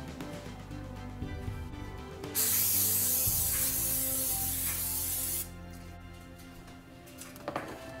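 Aerosol cooking spray hissing onto a metal baking sheet in one continuous spray of about three seconds, starting a couple of seconds in and cutting off suddenly.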